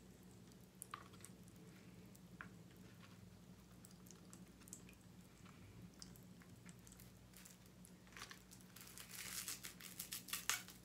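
A few faint clicks over a low steady hum, then, about eight and a half seconds in, a run of crinkling and tearing as a drinking straw's wrapper is torn open.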